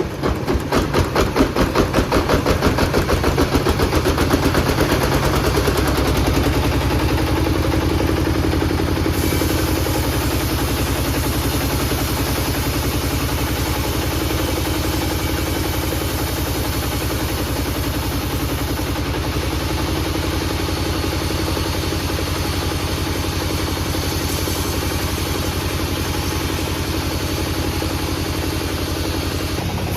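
A low-pitched engine running. For the first few seconds it chugs with an even pulse, then it settles into a steady drone.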